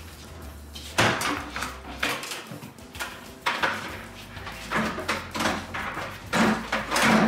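Heavy double-bowl kitchen sink, faucet still attached, being lifted out of its countertop cutout and carried: a series of knocks and clunks as it bumps the counter and cabinets, the loudest about a second in and near the end.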